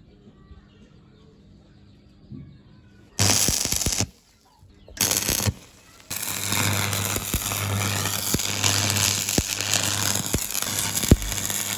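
Electric arc welding: two short arcs struck about three and five seconds in, then a steady arc held for about six seconds, crackling with many small cracks over a low buzz.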